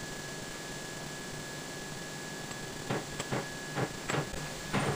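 Steady background hiss with a faint high whine. From about three seconds in come several short knocks and rustles as a newly made bolt is handled and fitted into the lathe's toolpost.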